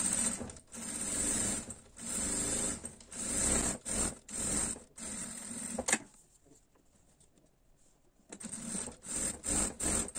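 Domestic sewing machine stitching a seam in short runs of about a second each, stopping and starting, with a pause of about two seconds a little past the middle.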